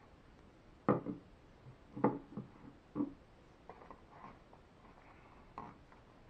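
Handling a hot sauce bottle and a cardboard sandwich box on a table: three knocks about a second apart, then soft rustling of the box and one more knock near the end.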